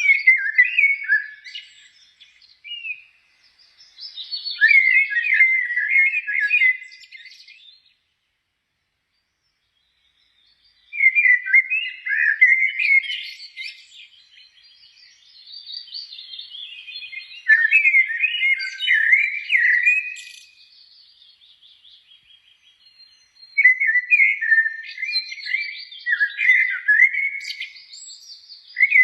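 A songbird singing long, varied phrases of rapid chirps and whistles, pausing between phrases, with a few seconds of silence about a third of the way in.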